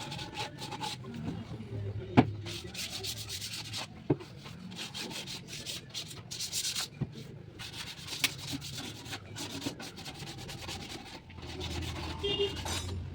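Wood being sanded by hand in irregular rubbing strokes, with a few sharp knocks in between, the loudest about two seconds in.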